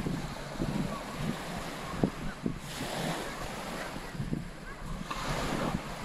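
Small waves washing up at the water's edge of a sandy beach, swelling twice into a hiss about two and a half and five seconds in, with wind buffeting the microphone throughout.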